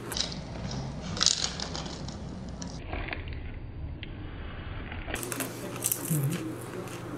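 Crunching and crackling of dried fried insects being chewed, with scattered small clicks and a sharper crunch about a second in.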